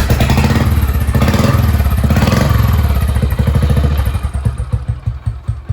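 Royal Enfield single-cylinder motorcycle engine running, loud for about four seconds and then settling to an idle with an even thump about eight times a second.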